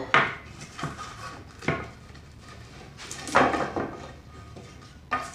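A few scattered sharp knocks and clatters of wood and hand tools handled on a workbench, the loudest a short cluster a little past the middle.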